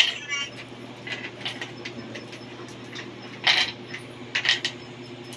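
Scattered clinks and clatters of small hard objects being handled, at irregular intervals and loudest about three and a half and four and a half seconds in, over a faint steady low hum.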